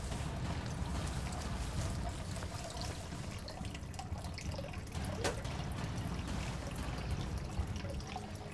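Water trickling and pouring steadily into a stone fountain trough.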